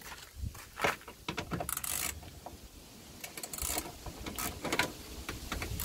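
Socket ratchet clicking in short runs, with metallic clinks and knocks, as the headlamp's 10 mm mounting bolts are undone.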